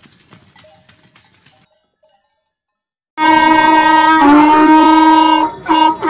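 Loud, drawn-out braying call of a wild ass starting suddenly about three seconds in: one long held note that breaks into shorter choppy calls near the end. Before it, only faint scattered clicks and then a second or so of silence.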